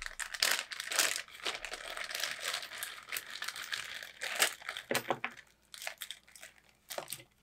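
Plastic zip-lock bags crinkling and rustling as they are pulled open and handled. The crinkling is dense for about five seconds, then dies down to a few small clicks near the end.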